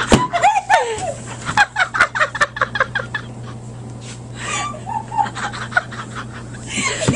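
Hysterical, uncontrollable laughter: high cackling bursts in quick runs, breaking off and starting again.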